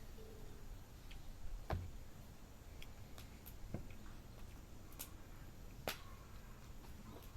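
Oak firewood burning in a campfire, crackling with sharp irregular pops every second or so over a low steady hiss.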